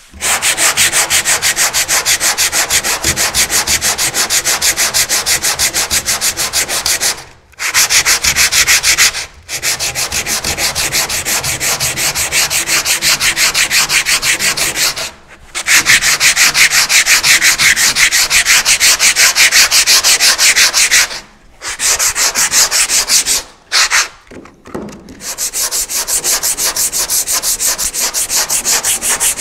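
Sandpaper scraping over hardened auto body filler in rapid, even back-and-forth strokes, stopping briefly about five times.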